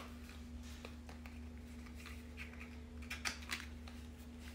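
Faint, scattered small taps and clicks of cardboard makeup boxes being handled, over a low steady hum.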